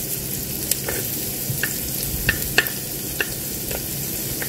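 Diced onion and shallot sizzling in hot oil in an electric multi-cooker's non-stick pot, with minced garlic going in: a steady hiss broken by scattered sharp pops and crackles.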